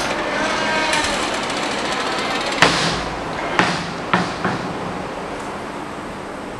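A steady hiss, then four sharp knocks a little over halfway through, the first two the loudest.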